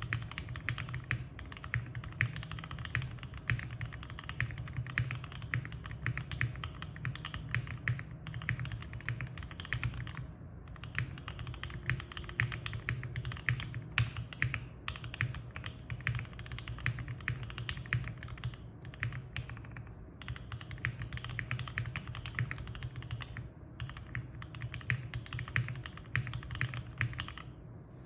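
Steady fast typing on a custom Portal65 mechanical keyboard with lubed OPBlack switches, an FR4 plate, a gummy O-ring mount and GMK keycaps, with short pauses and stopping near the end.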